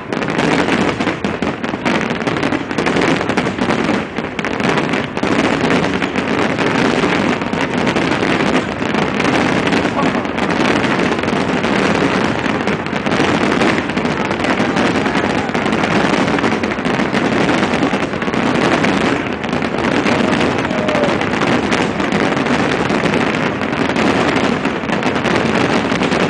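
A large aerial fireworks display going off without pause: many overlapping crackles and bangs, with crowd voices underneath.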